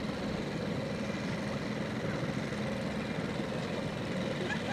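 Small outboard motor running steadily, pushing a small sailboat along at slow speed.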